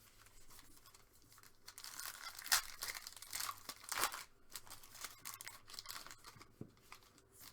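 Trading card pack wrappers being torn open and crinkled by hand, in irregular crackles with a couple of sharper rips about two and a half and four seconds in.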